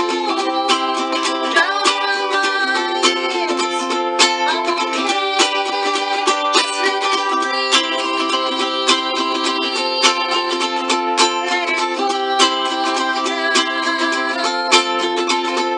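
Acoustic ukulele strummed in a steady rhythm, chords ringing out.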